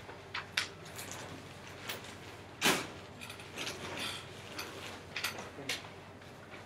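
Scattered small clicks, taps and rustles of things being handled at desks, the loudest about two and a half seconds in.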